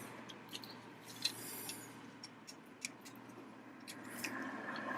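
Faint, scattered clicks and light rustling of small plastic parts being handled: the black plastic cover being pressed down over an LED footwell light in its housing.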